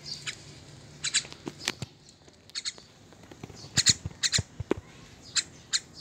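Young myna giving short, harsh squawks, singly and in quick pairs at irregular intervals. The loudest pair comes about four seconds in.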